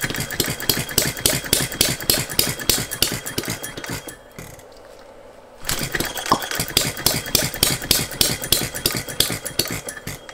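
Philip Duclos 'Odds n Ends' model hit-and-miss engine, fitted with a new piston sealed by a Viton O-ring, running with a rapid string of sharp firing pops. The pops break off about four seconds in, pick up again a second and a half later, and cut off at the end.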